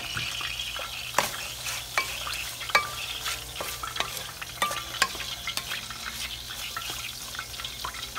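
Minced chicken breast, chopped onion and spices sizzling in oil in a metal pot, stirred with a wooden spoon that knocks irregularly against the pot, about once or twice a second.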